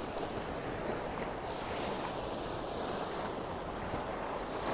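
Sea surf washing over a rocky shore, a steady rush of water with some wind on the microphone.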